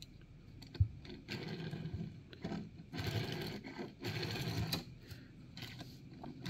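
Small die-cast toy car's wheels rolling back and forth on a table in short whirring runs of about a second each, with a light tap near the start. The owner finds the wheels have a lot of wobble.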